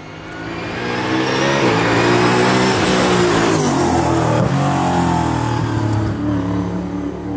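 Ford Mustang GT4 race car's 5.2-litre V8 at speed on track. It grows louder over the first two seconds, the engine note dips and climbs again around the middle, and it fades a little near the end as the car pulls away.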